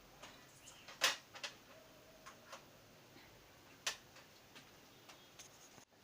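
Scattered small clicks and taps of plastic parts and screws being handled while a printer touch panel is put back together, the loudest about a second in and another near four seconds.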